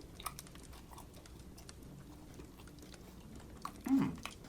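A person chewing food with small wet mouth clicks and smacks. About four seconds in there is a short voiced hum.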